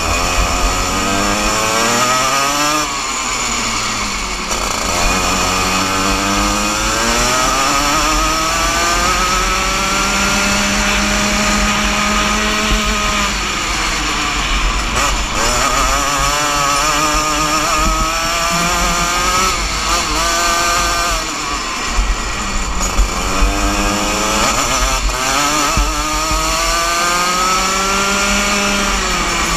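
Rotax Junior Max 125cc two-stroke single-cylinder kart engine at racing speed, its pitch climbing as the kart accelerates and dropping back as it slows for corners, again and again, over a steady low rumble.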